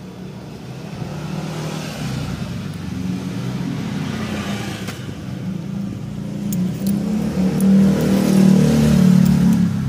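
An engine running steadily, growing louder over the last few seconds.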